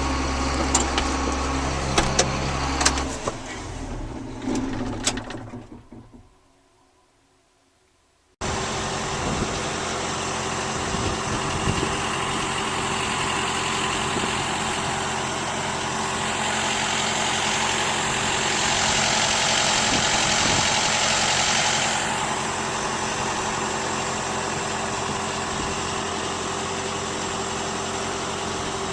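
Harvest machinery's engine running with a few sharp clicks, then dying away to near silence about six seconds in. After an abrupt cut, a steady engine drone with a hum returns and swells for several seconds in the middle.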